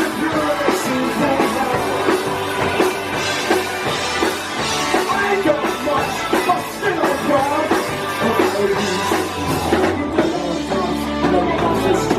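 Live rock band playing: a drum kit and guitars at a steady rock beat.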